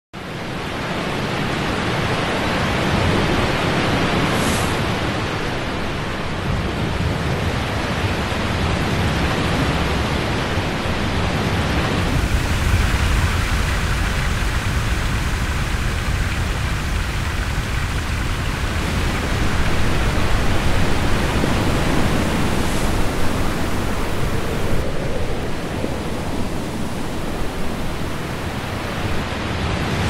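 Steady rushing noise of falling water, with no clear tone. The character of the noise shifts abruptly about 12 seconds and again about 25 seconds in.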